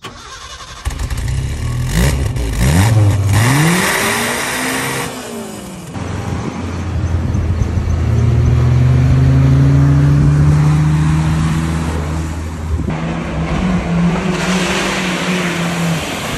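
Modified Maruti Gypsy's 970cc four-cylinder engine revving through a large chrome aftermarket exhaust tip: the pitch climbs for a few seconds, then it runs at a steady pitch as it drives. Near the end there is a noisy spray, as of tyres throwing mud and water.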